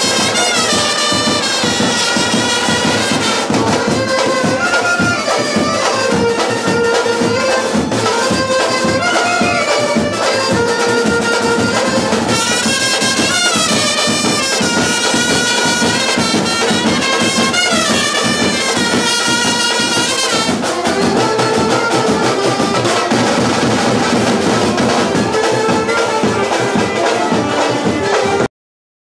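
A brass band of trumpets plays a lively melody over a steady drum beat, then stops suddenly near the end.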